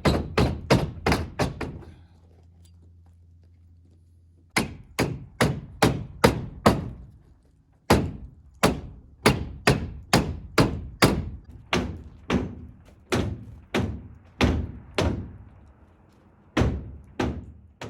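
Hammer blows driving something down, in runs of quick sharp strikes about two a second, with a pause of a couple of seconds near the start and a shorter one near the end.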